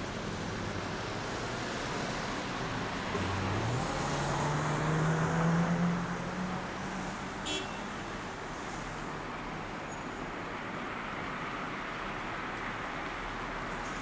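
Road traffic noise, with one vehicle's engine rising in pitch and growing louder a few seconds in, then fading as it passes. A single sharp click comes about halfway through.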